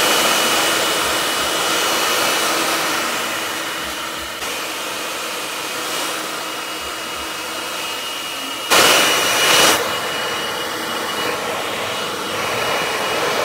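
Handheld hair dryer blowing steadily, a loud rush of air with a high motor whine, briefly louder for about a second about nine seconds in.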